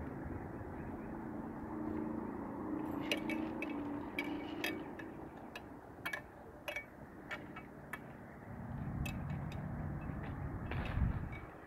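A distant motor vehicle engine droning steadily, fading after a few seconds, with a scatter of light clicks and taps in the middle and a low rumble swelling near the end.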